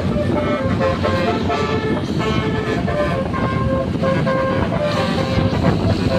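Multi-tone 'telolet' bus horn playing a melody of short notes that step up and down, over the rumble of a bus engine and road noise.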